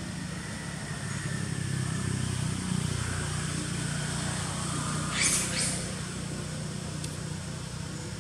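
Steady low motor hum, like an engine running at a constant speed. Two short high-pitched chirps come about five seconds in.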